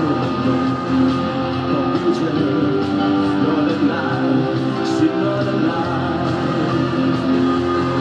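Male singer performing an up-tempo Cantopop song live, singing over loud backing music.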